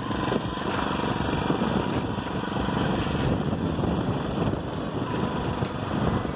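Motorized bicycle's small engine running steadily while riding, mixed with dense rushing wind noise on the microphone.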